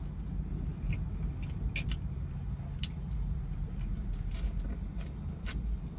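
Close-up eating sounds: biting and chewing meat off a chicken wing, with scattered wet clicks and crackles. A steady low rumble runs underneath.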